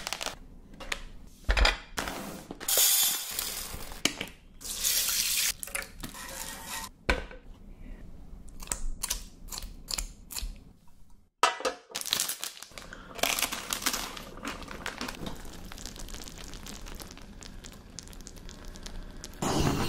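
A string of close-up kitchen sounds cut one after another: a plastic food tray being handled, glazed eel being cut with kitchen scissors, and thick sauce being poured over it. Several short bursts of hiss and watery sounds come between the clicks and handling noises.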